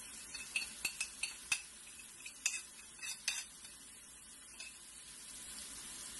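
A spoon clicking and scraping against a plate as spices are knocked off it into a pan, over a steady low sizzle of tomatoes cooking in oil. The clicks stop about three and a half seconds in, leaving only the sizzle.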